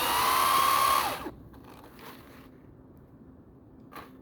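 RC car's electric motor whining as it is throttled, rising in pitch, holding for about a second, then cutting off.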